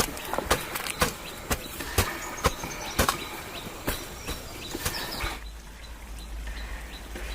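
Sharp knocks at an even pace of about two a second, with birds chirping faintly. About five seconds in, the knocking stops abruptly and a steady low hum takes over.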